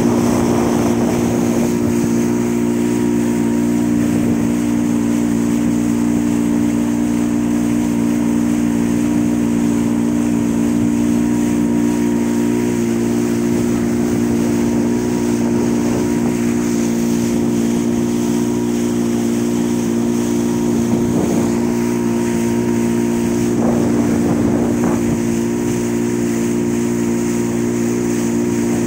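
Boat engine running at a steady cruising speed with an even drone, over water rushing and spraying along a wooden hull.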